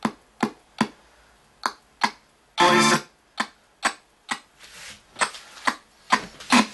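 RTC ghost box (spirit box) sweeping through radio stations: choppy snatches of broadcast sound, music among them, each cut off after a fraction of a second, about two or three a second, with one longer burst about three seconds in.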